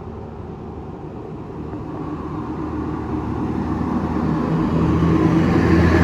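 A bus approaching along the road, its engine and tyre noise growing steadily louder, with the low engine hum coming through strongly near the end.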